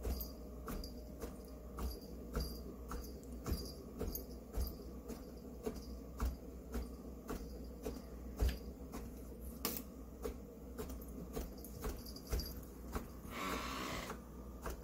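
Small HP DeskJet inkjet printer printing: the print carriage sweeps back and forth under a steady motor hum, with a sharp click just under twice a second as it reverses. Near the end there is a longer whirring pass.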